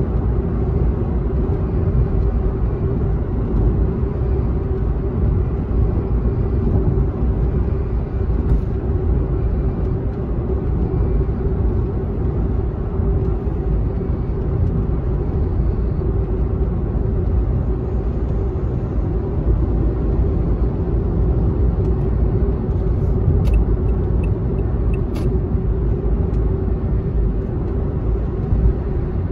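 Steady road noise inside a car cruising on an expressway: a low, even rumble from the tyres and engine with a constant hum.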